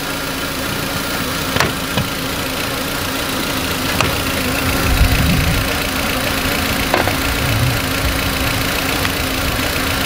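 2004 VW Beetle 1.8-litre turbo four-cylinder engine idling steadily, an idle the owner puts down to a vacuum leak at the brake booster line. A few sharp clicks and knocks are heard as the plastic engine cover is pulled off its mounts.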